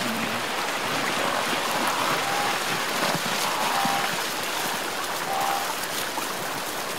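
Steady rushing and splashing of river water churned up by zebras and wildebeest wading across.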